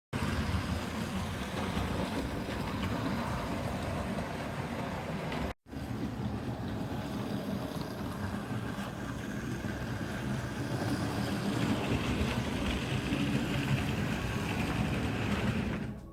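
Tender-driven Flying Scotsman model locomotive running along its track: a steady rolling rumble and rattle of wheels and motor. There is a brief break about five and a half seconds in, where two clips are joined.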